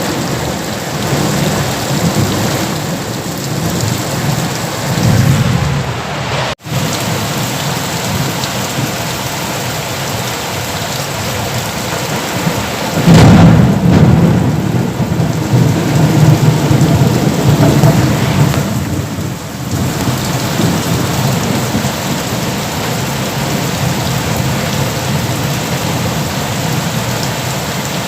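Thunderstorm: heavy rain falling steadily with rolling thunder. The loudest rumble comes about halfway through and rolls on for a few seconds. The sound cuts out for an instant about a quarter of the way in.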